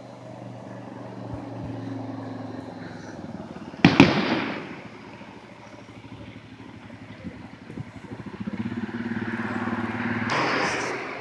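One loud firework bang about four seconds in, echoing briefly, over the steady hum of vehicle engines on the road, which grows louder near the end.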